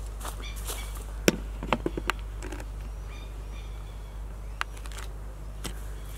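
A camera being handled and set back in place: a few sharp clicks and knocks, mostly in the first two seconds, over a low steady outdoor rumble with faint high chirps.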